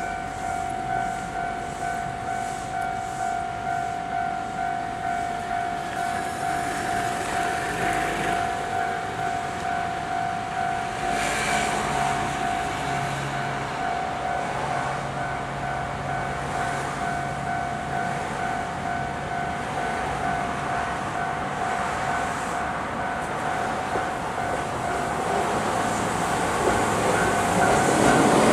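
Japanese railway level-crossing warning bell ringing in a steady repeating rhythm. A train draws nearer and grows louder near the end.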